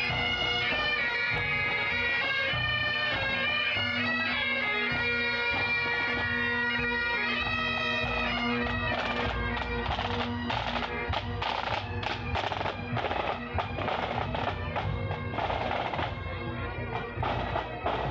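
Marching pipe band: bagpipes playing a tune over their steady drone, then from about halfway the band's drums beating close by as the pipes fade.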